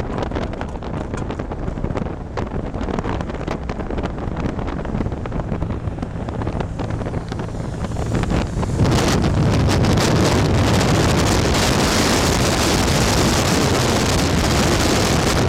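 Wind buffeting the microphone, rough and crackling at first, then suddenly much louder and fuller about nine seconds in.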